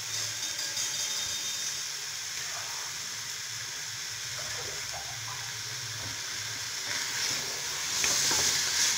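Goat meat and garlic frying in desi ghee over high heat, a steady sizzle. Near the end the meat is stirred with a spatula and the sizzle grows louder.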